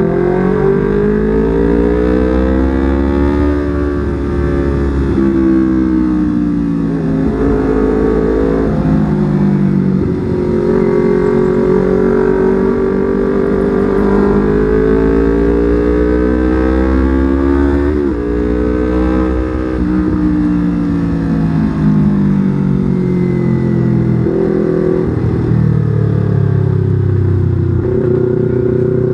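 Yamaha R25's parallel-twin four-stroke engine under way, its revs climbing and falling in long sweeps, with sudden jumps in pitch at several gear changes.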